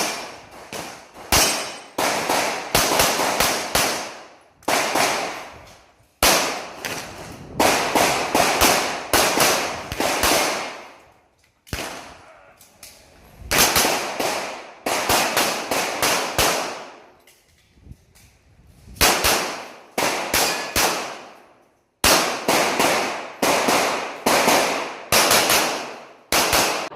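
Rapid handgun fire from an IPSC Classic-division pistol, shots coming in quick strings of two to several, each with a short ring-out, separated by brief pauses while the shooter moves between targets.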